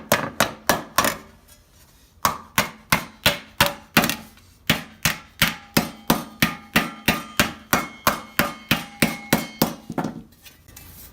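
Hand hammer striking a steel gorget plate on a wood stump, flaring out its edges. The blows are rapid and even, about three a second, with a pause of about a second near the start, and some of them ring faintly. The hammering stops near the end.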